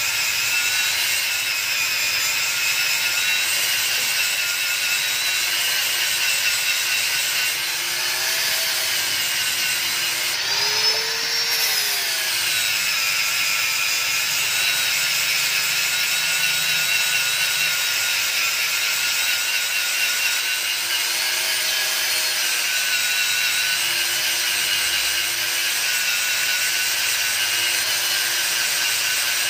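Handheld electric angle grinder grinding the weld seams of a motorcycle exhaust smooth: a continuous grinding hiss with a high whine that rises and falls slightly in pitch, most clearly about eleven seconds in.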